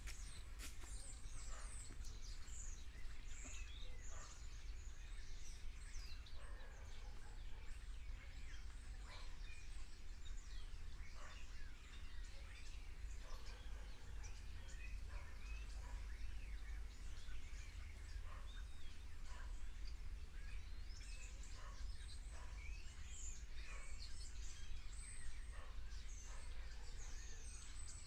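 A tree full of small birds calling, a dense chatter of short, overlapping chirps and calls, over a steady low rumble.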